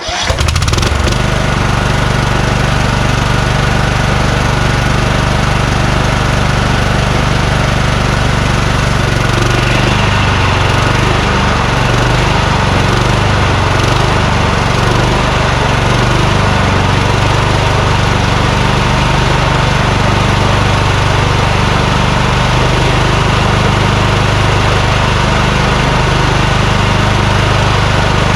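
Kohler Courage engine on a Craftsman YS4500 lawn tractor running steadily, just started. About ten seconds in, the sound changes and a higher-pitched band joins in.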